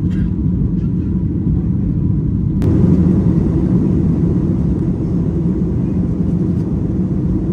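Steady low rumble of engine and airflow noise inside the cabin of a Boeing 737 MAX 8 jet airliner. About two and a half seconds in, a brighter hiss abruptly joins the rumble and stays.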